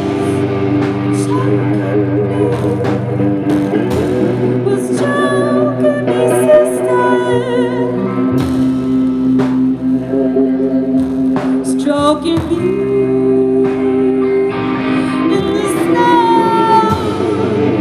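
Live band playing a song, led by two electric guitars, with sustained, wavering notes over steady sharp hits.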